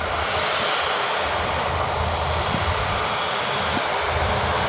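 Fixed-wing aircraft engines running as a plane moves near the airport, a dense rushing noise that slowly grows louder.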